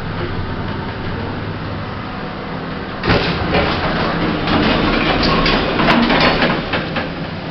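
Lift car travelling with a steady low hum, then about three seconds in a sudden louder clatter as the sliding doors open, followed by a run of clicks and knocks.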